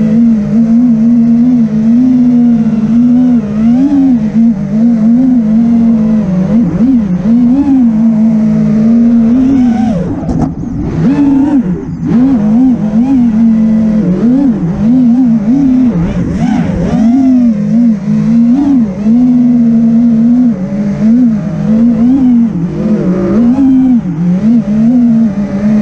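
Brushless motors and propellers of a 5-inch FPV quadcopter (Brother Hobby Returner R6 2306 2450kv motors) whining in flight, heard from onboard, the pitch wavering up and down continuously as the throttle is worked. About ten seconds in the whine dips and sweeps sharply for a couple of seconds, as in a hard manoeuvre.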